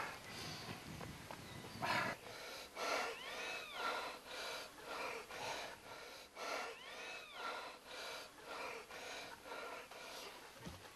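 A man's rapid, strained breathing in pain, short breaths about every half second to second. A high arching call sounds twice, about three and a half seconds apart.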